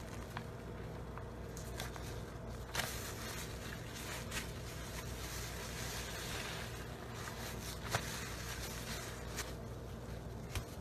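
A soap bar being rubbed and squeezed into thick lather in soapy water, with wet squelching and a few sharp crackles, over a steady low hum.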